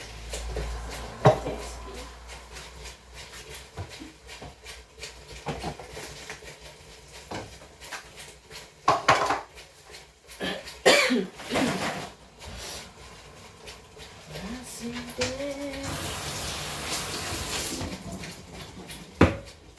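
Kitchen utensils and cookware clattering: a spoon and pans knocking and scraping during a transfer from one pot to another, with a cluster of louder knocks about halfway through and a steady hiss for about two seconds near the end.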